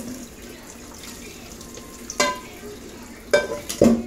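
Kitchen tap running steadily into a stainless steel sink while a metal cooking pot is knocked against the sink. There are three ringing clanks: one about two seconds in and two close together near the end.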